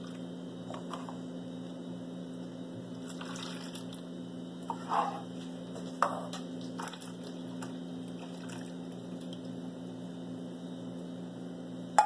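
Milk gelatin mixture pouring and dripping from a metal bowl into a silicone mold, with a few short spatula sounds against the bowl over a steady low hum. A sharp tap near the end.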